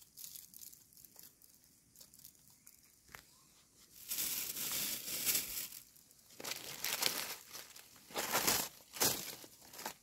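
Dry rustling and crinkling in several loud bursts starting about four seconds in, after a quieter stretch with a few faint clicks: dry leaf litter and a plastic collecting bag being disturbed.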